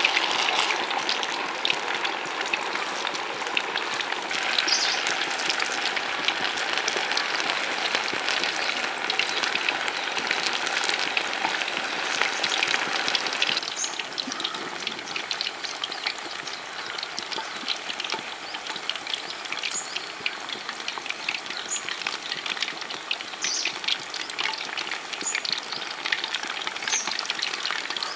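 Mutton vadas deep-frying in a kadai of hot oil: a dense, steady sizzle and crackle. It softens a little about halfway through, and a few sharp ticks come through it in the second half.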